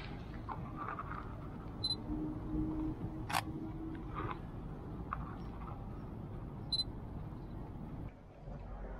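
Sony a6300 mirrorless camera taking a photo: a short high electronic beep about two seconds in, a sharp shutter click about a second and a half later with a smaller click after it, and another short beep near the end.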